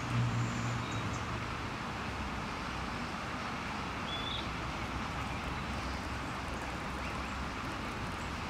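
Steady outdoor background noise like distant road traffic. A low engine drone fades out in the first second, and a single short high chirp comes about four seconds in.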